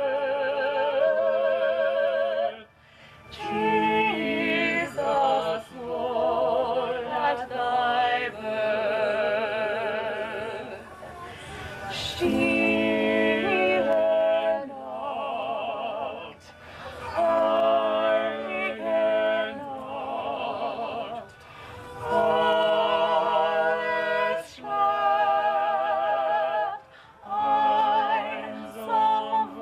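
Classical, opera-style singing with a wide vibrato, sung in phrases of a few seconds broken by short pauses.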